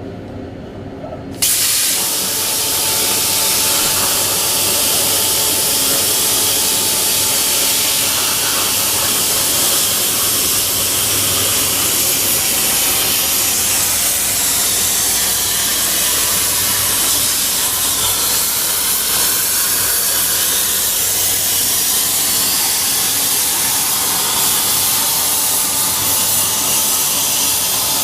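CNC plasma cutter torch striking its arc about a second in and cutting quarter-inch steel plate: a sudden loud, steady hiss that holds on.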